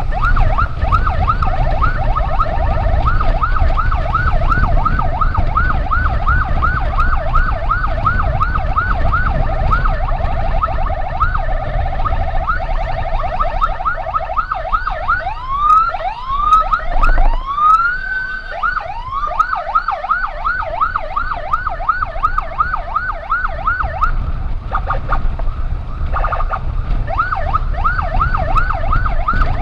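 Electronic emergency siren in a fast yelp of about three rising sweeps a second. About halfway through it changes to a few slower, longer rising wails, then goes back to the yelp, and it breaks off briefly near the end. A steady low rumble runs underneath.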